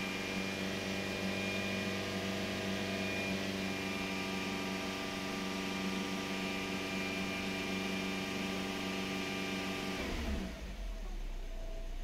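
Suzuki Swift's 1.3-litre four-cylinder petrol engine held at raised revs with a steady note, then released about ten seconds in, the pitch falling quickly as it drops back to idle. Heard from inside the car's cabin.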